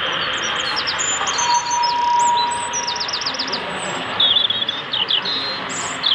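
Small birds chirping and trilling in quick runs of high notes, over a steady background hiss. A single steady tone sounds for about a second and a half near the start.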